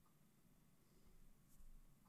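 Near silence: room tone, with a faint soft bump about one and a half seconds in.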